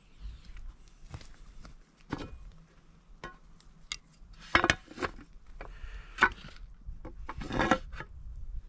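Irregular knocks, clinks and short scrapes of camp cookware, utensils and wood being handled, with a few louder strikes about halfway through and near the end.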